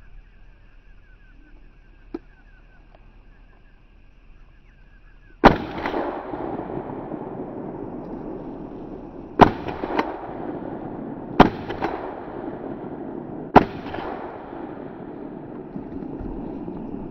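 Four close, loud shotgun shots fired at a buck. The first comes about five seconds in and the other three follow about two seconds apart, each with a long echoing tail.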